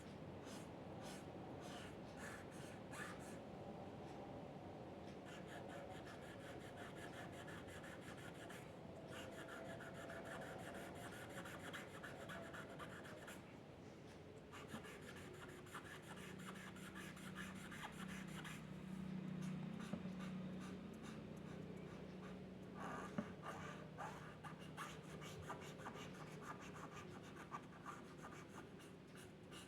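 Quiet scratching of a drawing tool on paper: repeated short strokes in runs, with brief pauses. A low steady hum comes in about halfway through and fades a few seconds later.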